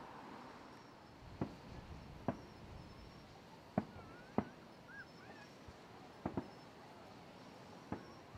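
Aerial firework shells being fired and bursting at a distance: a series of about seven sharp bangs at irregular intervals, two of them in quick pairs.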